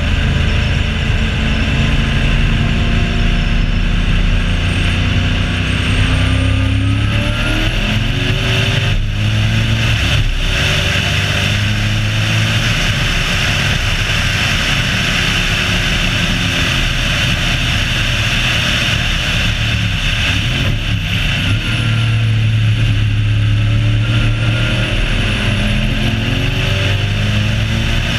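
Race car engine pulling hard at speed on a track lap, its pitch falling and climbing again as the revs change through the corners, with a steady rush of wind and road noise on the bonnet-mounted camera.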